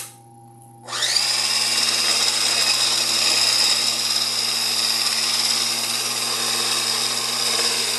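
Electric mixer switched on about a second in and running steadily with a constant high whine, its beaters churning cake batter in a bowl.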